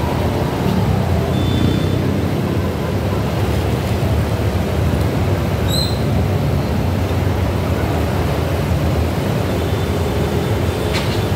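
Steady rumble of road traffic passing below. About halfway through there is one short high chirp.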